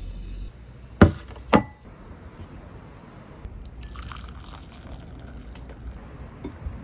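Two sharp knocks about a second in, half a second apart, as an upturned cup-noodle cup of fried rice is knocked down onto a plate; then soup pouring from a frying pan into a small ceramic bowl.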